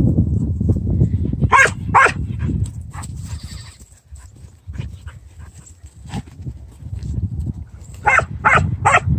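A dog barking in play: two sharp barks about one and a half seconds in, then three quick barks near the end, over a low rumble that dies down after the first few seconds.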